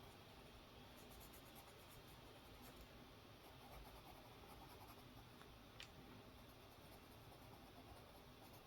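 Faint scratching of a colored pencil being worked across coloring-book paper, with one small sharp click a little before six seconds in.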